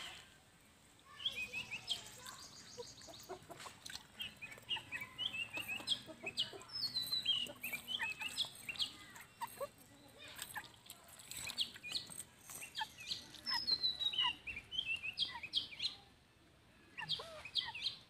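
Chickens clucking, with many short, high chirping calls. Light clicks come in among them as snail shells are sorted on a stone slab and dropped onto a steel plate.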